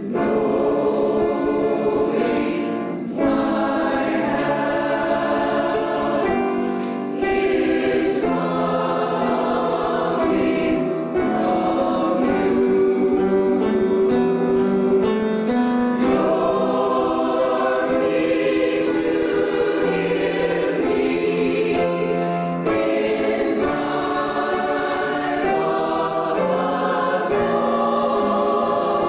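Mixed choir of men's and women's voices singing together, phrase after phrase, with brief breaths between phrases about three and seven seconds in.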